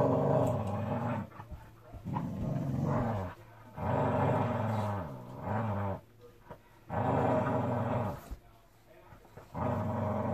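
A dog growling in long, wavering grumbles, about six bouts of a second or so each with short pauses between.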